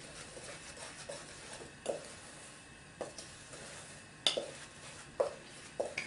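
Wire whisk stirring seasoned flour in an enamel bowl: soft scraping with several irregular clinks of the whisk against the bowl, the loudest a little past halfway.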